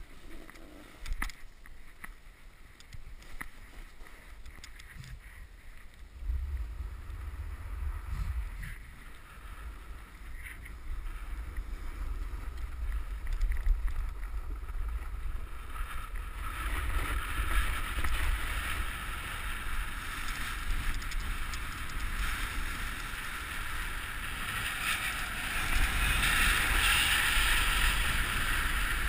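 A snowboard sliding and carving over snow, with wind buffeting the camera microphone as a low rumble. There are scattered clicks and scrapes in the first few seconds; the rumble comes in about six seconds in, and the board's hiss grows louder through the second half as speed builds.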